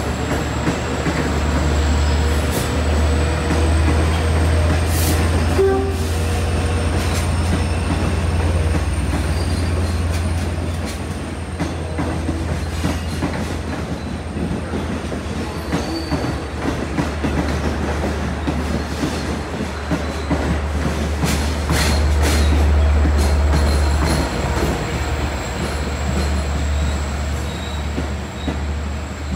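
Diesel-hauled Long Island Rail Road passenger train moving through the station, with the steady deep rumble of its EMD DE30AC diesel locomotives. A thin high wheel squeal runs under it, with occasional clacks of wheels over the track.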